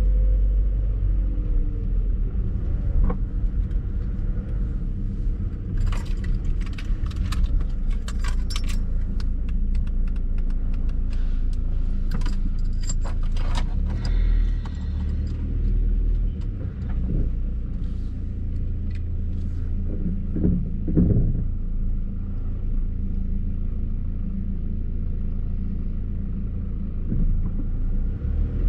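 Car engine running, heard from inside the cabin as a steady low rumble. A stretch of light jangling clicks comes in about a quarter of the way through and runs for several seconds.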